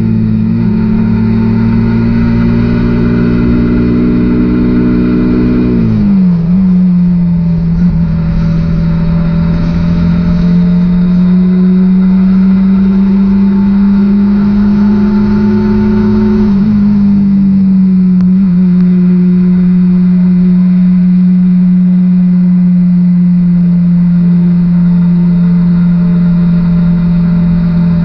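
Suzuki GSX-R150's single-cylinder engine running at cruising revs under way. Its pitch climbs slowly, then drops sharply about six seconds in as the rider shifts up, and dips again around sixteen seconds in before holding steady.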